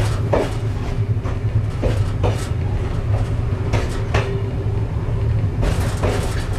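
Amtrak Silver Star passenger train rolling along the track, heard from inside the car: a steady low rumble with irregular sharp clicks and knocks from the wheels on the rails.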